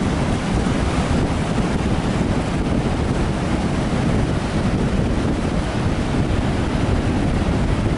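Strong wind buffeting the microphone over the steady rush of storm surf breaking on a sandy shore.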